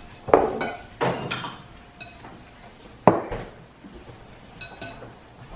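Tableware clinking and knocking on a wooden dining table: a fork and spoon tapping against a serving bowl and plates, and a glass jar set down. Three sharp knocks with a brief ring, the loudest just after the start, with lighter clinks in between and near the end.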